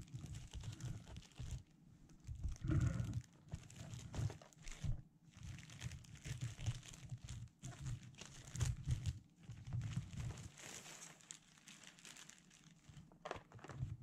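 Glossy plastic poly mailer bag crinkling and rustling in irregular bursts as hands open it and pull a cardboard box out.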